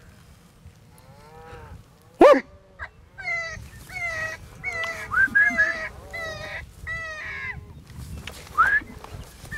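A string of short, yelping animal calls, each falling in pitch, with one loud sharp call about two seconds in.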